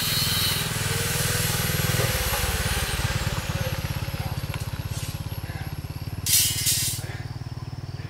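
An engine running with an even chugging beat, with a short hiss about six seconds in.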